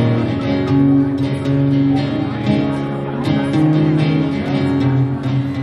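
Guitar music with strummed and plucked strings, playing steadily and cutting off abruptly at the end.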